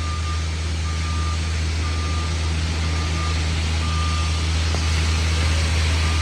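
Backup alarm of a construction truck beeping at one steady pitch, about once a second, over the low, steady running of its diesel engine.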